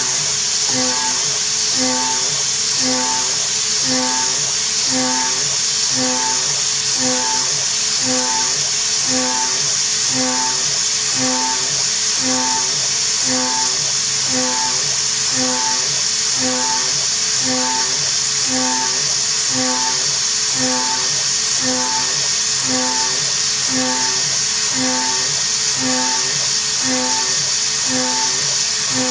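Background music with a steady, repeating beat over the even high-pitched whine and hiss of a high-speed CNC spindle milling aluminium with an end mill.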